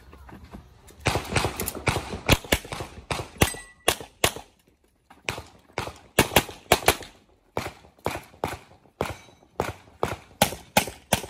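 Rapid pistol fire: many sharp shots, often in quick pairs, in one fast string, then a break of about a second just past four seconds in, then steady shooting at about two to three shots a second.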